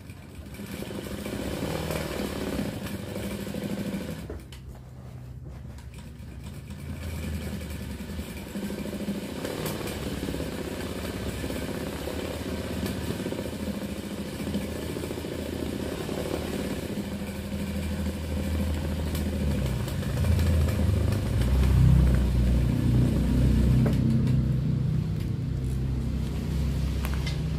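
Industrial sewing machine running, its needle stitching freehand embroidery into fabric guided by hand. Quieter for a few seconds about four seconds in, louder in the last third.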